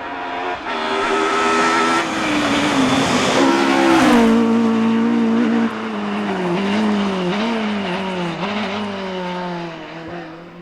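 Ford Escort rally car engine under hard throttle, growing louder as the car approaches and dropping in pitch as it goes by about four seconds in. After that the engine note rises and falls repeatedly as the throttle is worked.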